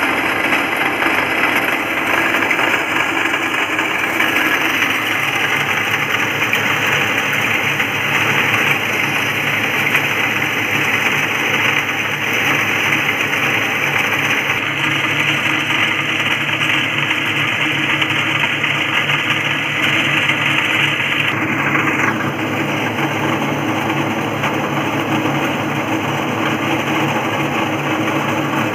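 Small electric rice huller running steadily while husking black rice (chak-hao), with the grain pouring from its outlet chute. The sound changes slightly about 22 seconds in.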